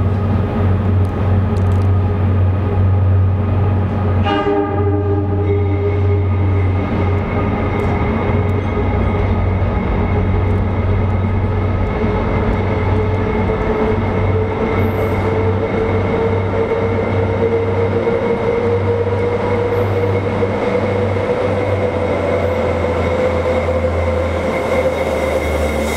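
An NYC Subway pump work train approaching through the tunnel into the station, with a steady low drone from its lead unit. A horn blast sounds about four seconds in, and a tone slowly rises in pitch as the train draws closer.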